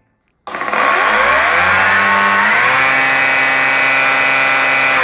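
Greenworks GS110 40V cordless top-handle chainsaw's brushless electric motor triggered about half a second in, spinning up with a rising whine and then running the chain free at full speed with a loud, steady whine, cutting off right at the end.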